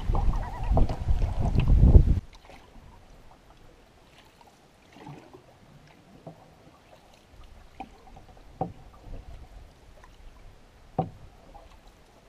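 Wind buffeting the microphone over paddle strokes and choppy water against a canoe, cutting off suddenly about two seconds in. After that, calm water with a few faint knocks and taps against the canoe.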